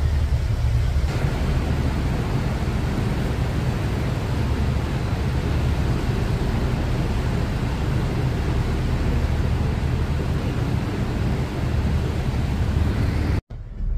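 Steady low rumble and rushing noise of a river cruise ship's engines and churning water in a lock chamber. It cuts off abruptly just before the end.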